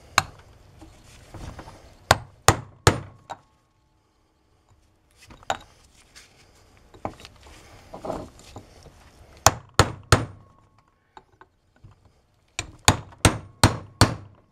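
Hammer striking a steel punch to drive a worn, press-fit wheel bearing out of the heated rear bearing housing of a 2001 Polaris Sportsman 500. Sharp metal strikes come in short runs of three or four, with pauses between.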